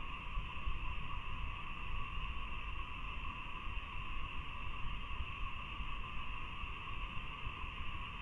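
Steady chorus of insects, with one band of chirring around the middle pitch and another higher up, heard through a CCTV camera's microphone over a low, uneven rumble.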